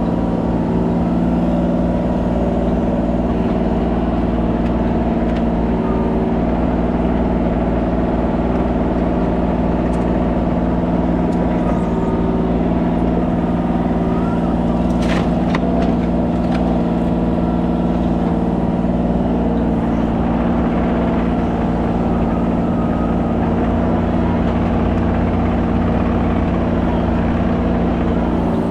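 Kubota 33 mini excavator's diesel engine running steadily at working speed, with a sharp clank about fifteen seconds in and a few fainter knocks.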